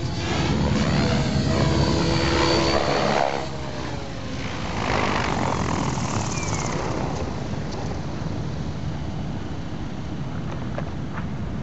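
Electric 700-size RC helicopter (Compass 7HV, Scorpion motor, 690 mm blades) flying low past with its rotor buzzing and motor whining, then landing; a falling whine about six seconds in as the rotor slows, after which only a steady rushing sound remains.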